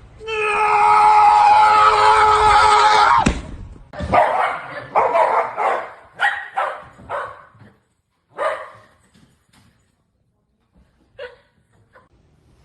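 A dog calling: one long held pitched call for about three seconds that stops suddenly, then a run of short barks that thins out to a few faint sounds.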